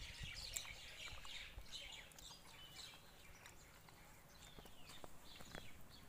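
Faint birdsong: scattered high chirps and several short falling calls, more of them in the second half, over quiet outdoor background.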